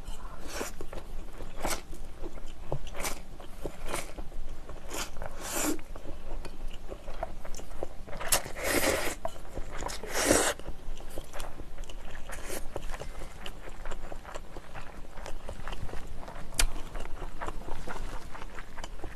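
Close-miked eating of spicy instant noodles: repeated slurping and chewing, with two longer, louder slurps a little past the middle as she drinks from a metal bowl.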